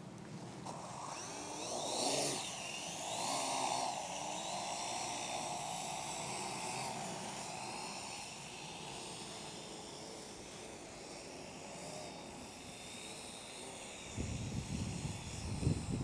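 Parrot AR.Drone quadcopter's four electric motors spinning up for takeoff, a whine that rises and wavers about two seconds in, then settles into a steady high-pitched whine as it hovers. Near the end a loud low rumble of wind on the microphone comes in.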